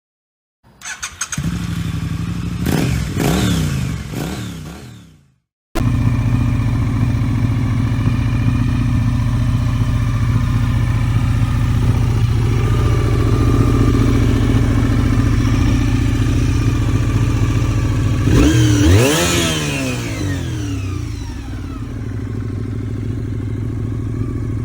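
Honda VFR400R NC30's 400 cc V4 engine running and being revved a few times. It then idles steadily, rises in one sharp rev about three quarters of the way through, and settles back to idle.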